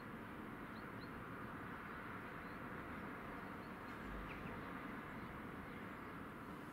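Faint outdoor town ambience: a steady distant hum of traffic, with a few short, faint bird chirps about a second in and again around four seconds.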